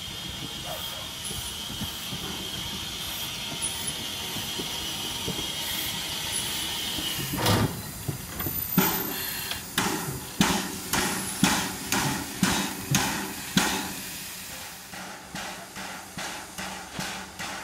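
Ivatt Class 2MT 2-6-2T steam tank locomotive: a steady hiss of steam, then about halfway through the exhaust beats start, sharp chuffs about one and a half a second, later a little quicker and quieter as the engine gets under way.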